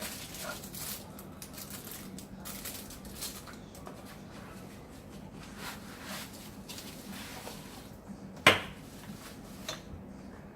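Packaging being handled and opened: light rustling, scraping and small clicks, with one sharp knock about eight and a half seconds in that is the loudest sound.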